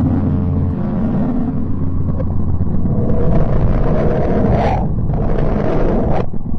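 Sonified spacecraft recording of radio and plasma waves in space: a dense low rumbling noise. A steady low hum under it stops under a second in, a higher hissing band joins about three seconds in, and the sound breaks off abruptly for a moment near the end.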